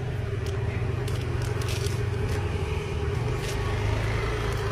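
Steady low vehicle-engine rumble with a steady hum above it, and short, sharp crinkles of plastic bags being handled every second or so.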